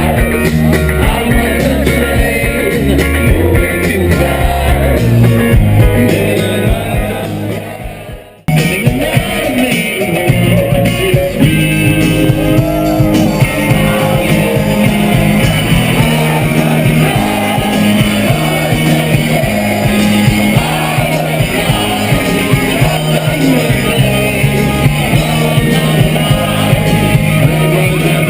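Rock music with singing and guitar. About eight seconds in it fades and cuts off abruptly, and a different rock song with singing starts straight away.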